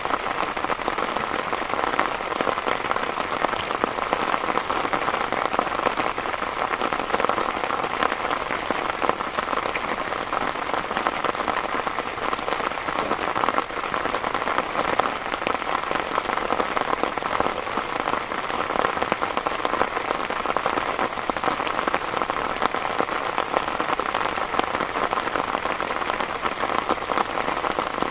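Heavy rain falling steadily, a dense, even rush of countless drops striking a surface without letup.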